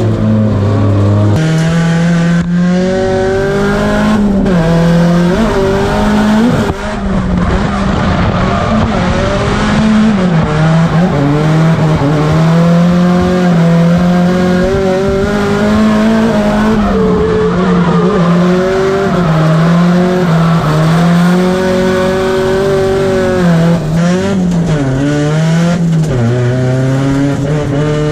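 Drift car's engine heard from inside the cabin, revving up and down over and over as the throttle is worked through the drifts, with tyre squeal underneath.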